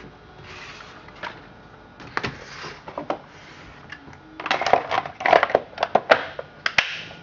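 Plastic clicks, knocks and rubbing as the red top cover of a Husqvarna 357 XP chainsaw is handled and fitted back onto the saw by hand, a few knocks at first, then a quick clatter in the second half.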